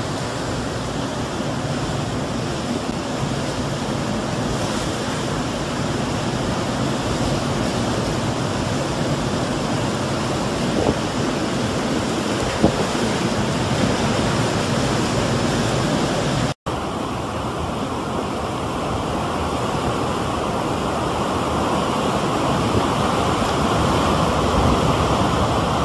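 Hurricane-driven surf breaking heavily on a beach, a steady rushing roar of waves mixed with wind buffeting the microphone. The sound cuts out for an instant about two-thirds of the way through and resumes a little hissier.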